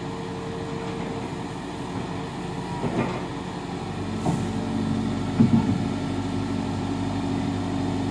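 Volvo EC210 long-reach excavator's diesel engine running under load as the machine climbs onto a trailer, its note shifting about four seconds in. A few knocks come from the tracks on the trailer, the loudest a quick cluster about five and a half seconds in.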